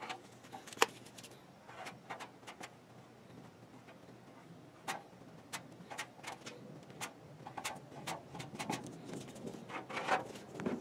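Irregular clicks and short scrapes of a plastic spreader working fiberglass-reinforced body filler along the edge of a steel fender's wheel arch, the filler already starting to set. One sharper click comes about a second in, and the clicks come closer together in the second half.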